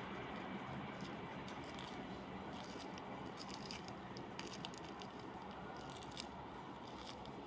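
Steady rumble of a train, slowly fading, with scattered light ticks of raindrops.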